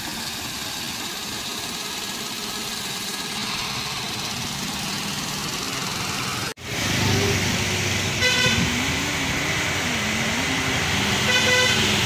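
Heavy 12-wheel lorry's diesel engine running and tyres on the wet road as it turns a hairpin bend, a steady noise; after an abrupt break the truck engine sounds louder and closer, with two short horn honks about three seconds apart in the second half.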